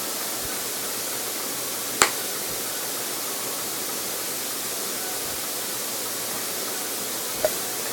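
Steady hiss of background noise with one sharp click about two seconds in and a faint tap near the end.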